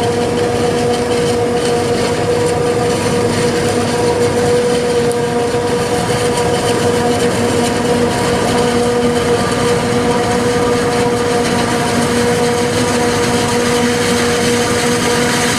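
Claas Jaguar 870 self-propelled forage harvester running steadily while chopping corn for silage: a constant engine and driveline sound with a steady high whine that does not change pitch.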